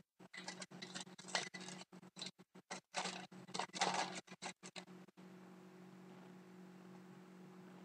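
Trading cards being handled: a few seconds of irregular sliding and scraping as cardboard cards are shuffled and slid past one another, then stopping.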